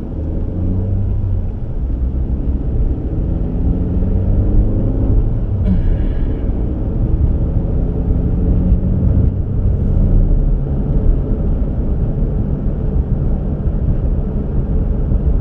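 Car on the move: steady low engine and road rumble, the engine note drifting up and down with speed. A short higher-pitched sound comes about six seconds in.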